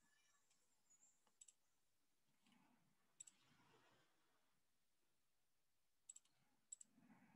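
Near silence broken by faint computer mouse clicks, coming as quick double clicks about four times.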